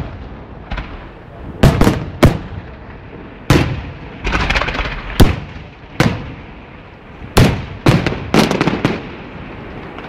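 Fireworks bursting overhead: about nine loud, irregularly spaced bangs, each with an echoing tail, and a spell of crackling around the middle and again near the end.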